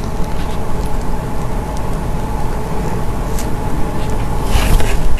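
A steady low background rumble with a faint hum runs throughout. Over it, a plastic spoon scoops through cream and sticky mochi cake in a plastic box, giving a few soft clicks and a louder brief scrape near the end.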